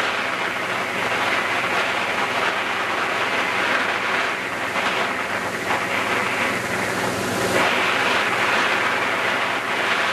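Motorboat under way on open water: a steady rush of wind and water over the low hum of its engine.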